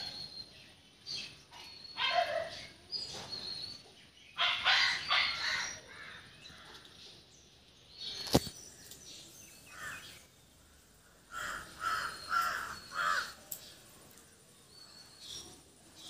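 A crow calling outdoors: repeated harsh caws, mostly in short runs of two or three. A single sharp knock comes about eight seconds in.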